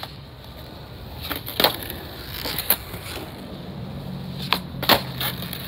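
Skateboard doing flat-ground tricks on pavement: the wheels roll with a low steady hum, and the board hits the ground with sharp clacks, one about a second and a half in, one near three seconds, and three close together near the end, the loudest of them just before the end.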